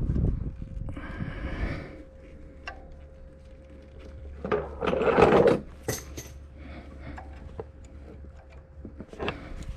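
Hand-work noises in an engine bay: small metallic clicks and clinks of tools and parts being handled, with a louder scrape or rustle about five seconds in, over a faint steady hum.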